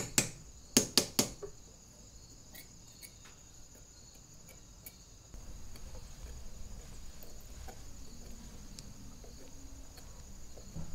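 A quick run of sharp light clicks as silver wire pieces and a metal ruler are handled on a steel bench block, then a few faint ticks of wire being worked by hand. Crickets chirp steadily throughout.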